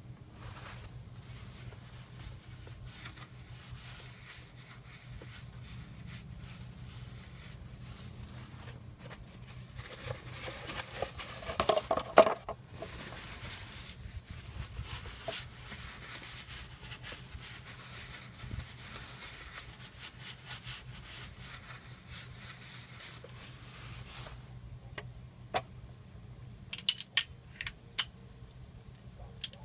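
Light metal clinks and scraping from hands working at a pickup truck's rear differential housing during a fluid service, over a steady low hum. A louder burst of scraping and knocks comes about twelve seconds in, and a few sharp clicks near the end.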